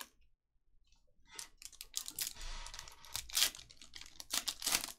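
Silver foil trading-card pack wrapper, a 2021 Bowman Sapphire baseball pack, crinkling and tearing open in the hands: a dense run of sharp crackles starting about a second in.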